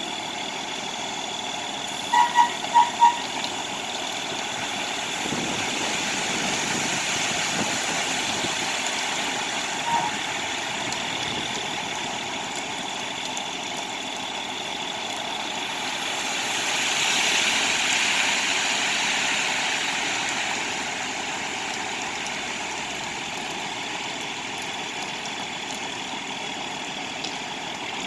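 Concrete truck running steadily on site, swelling in level about halfway through, with four short beeps about two seconds in.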